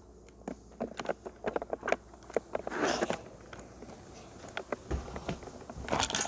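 Footsteps with scattered light clicks and taps of handling. There is a brief rustle about three seconds in and a dull thud about five seconds in.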